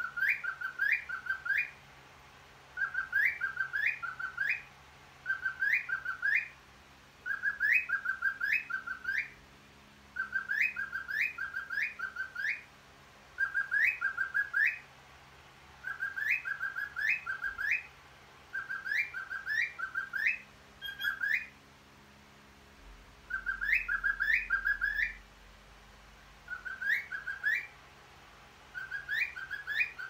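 Cockatiel whistling its song: short phrases of three or four quick rising notes, repeated about every two to three seconds, with a slightly longer pause a little past two-thirds of the way through.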